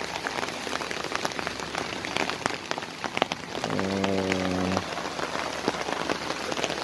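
Steady rain falling, heard as an even hiss laced with many separate sharp drop ticks. About halfway through, a low steady held tone lasts about a second.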